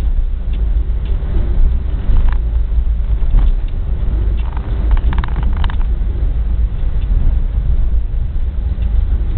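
Passenger train coach running at speed, heard from inside: a loud, steady low rumble of wheels on rail and rushing air.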